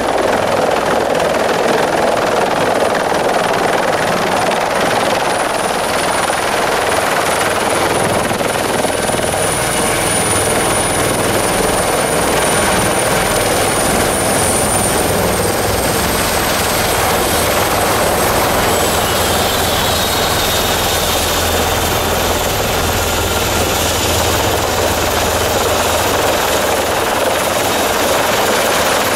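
Eurocopter EC120B helicopter, a single-turbine helicopter, running close by: a steady rotor and engine din with a thin high whine that drops slightly in pitch about halfway through.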